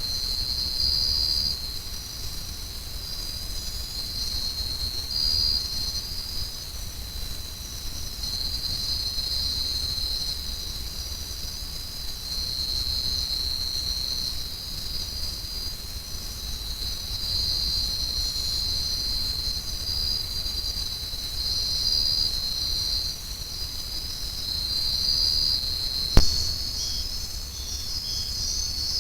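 Insect chorus: many callers overlapping in a steady, high-pitched shrill, over a low rumble. A single sharp click near the end.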